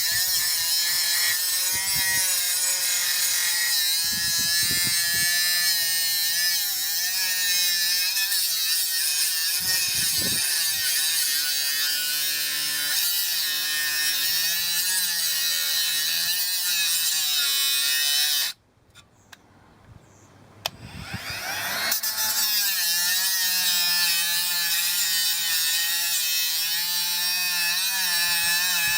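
Parkside PWSA12 B1 12-volt cordless mini angle grinder running and grinding, its motor whine wavering as the load changes. About two-thirds through it stops abruptly. A couple of seconds later it starts again, its whine rising as it spins back up to speed.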